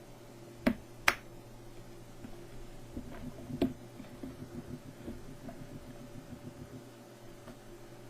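Sharp clicks and light ticks of an iPod mini's small casing parts and tools being handled while it is taken apart, three clear clicks in the first few seconds, the second the loudest, over a steady low hum.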